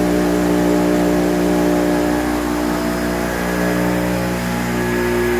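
Multiscore MR 21 panel rip saw running with no panel feeding through: a steady machine hum made of several held tones, with no cutting sound.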